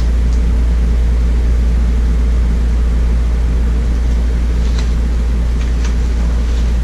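Steady low hum with no speech, and a few faint rustles and ticks as a picture book is held up and its pages handled.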